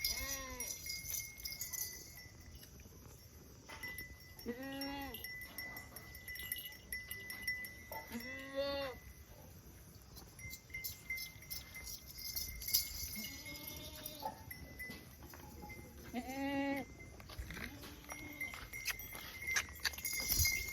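Goats bleating one at a time, about six separate calls spread over twenty seconds, each a short wavering cry.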